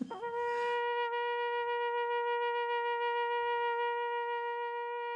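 Shofar horn blown in one long, steady note, with a quick scoop up into the pitch at the start; it is sounded as an alpine blessing over the pasture.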